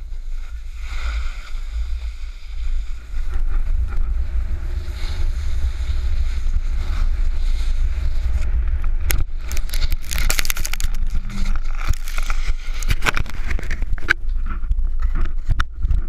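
Wind buffeting the microphone of a pole-mounted action camera while snowboarding downhill, over the hiss of a snowboard sliding on packed snow. From about nine seconds in, a run of sharp scrapes and knocks.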